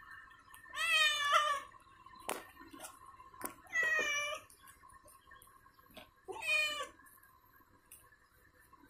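Wet young cat meowing three times, each meow under a second long and a few seconds apart, as it is towelled dry after a bath.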